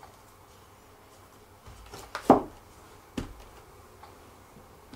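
Wooden chair leg being handled and fitted onto the chair's corner bracket: soft handling sounds and two sharp knocks about a second apart, the first the loudest.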